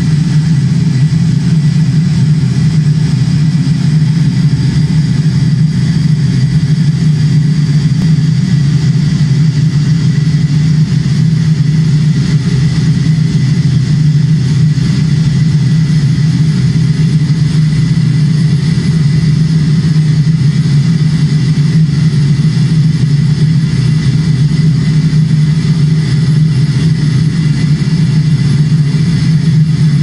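Electroacoustic drone from a live sound-art piece built from recordings of a morgue, a crematorium and a dissection: a loud, steady low rumble with a thin high tone held above it, unchanging throughout.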